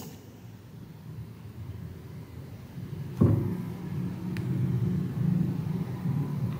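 Faint hiss, then about halfway through a low steady rumble sets in and carries on, with a single faint click shortly after it starts.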